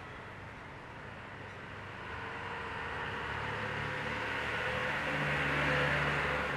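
Street traffic: a passing motor vehicle's engine and road noise grows louder from about two seconds in and peaks near the end.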